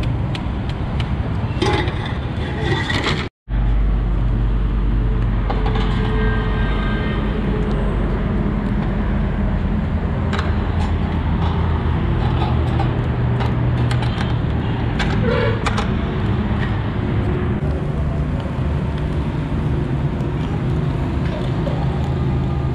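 Ambience at an open-air charcoal grill: a steady low rumble of road traffic with scattered sharp clinks and scrapes of metal skewers and a coal shovel. The sound drops out for a moment a few seconds in and comes back with a heavier low rumble.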